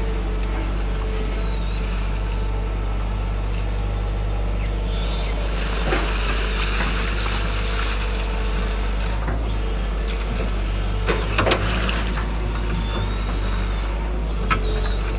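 Excavator's diesel engine running steadily under load, with a few short knocks and rattles from the machine.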